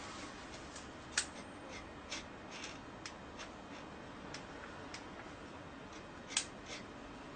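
Ink pen scratching and tapping on drawing paper in short, irregular strokes, with a few sharper clicks among them, over a steady room hiss.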